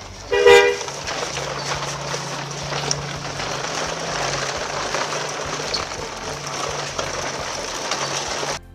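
A short horn toot about half a second in, followed by a steady vehicle rumble that cuts off suddenly near the end.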